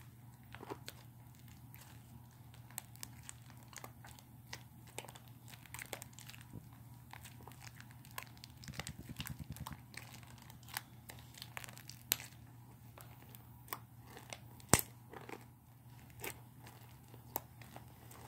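Slime being mixed and squished by hand, making irregular sticky clicks and crackles, with one sharper pop about three-quarters of the way through. A steady low hum runs underneath.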